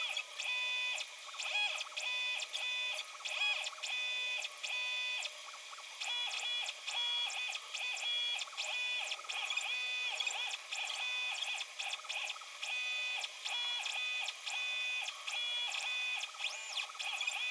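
Stepper motors of a DIY Arduino/GRBL pen plotter whining as the machine traces lettering. The pitch ramps up and down and the whine stops and starts with each stroke of the pen.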